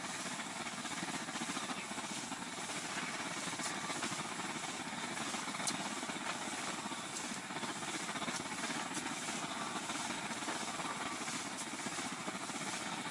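Liquid-fuel blowtorch burning steadily in the tent, a constant even rushing noise, with a few faint ticks over it.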